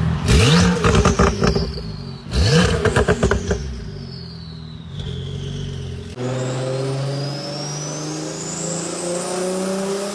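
Turbocharged car engine revved twice, each blip followed by a falling turbo whistle and a fast, chattering turbo flutter as the throttle closes. About six seconds in, another turbo car runs steadily while its turbo whistle rises in pitch as it spools up.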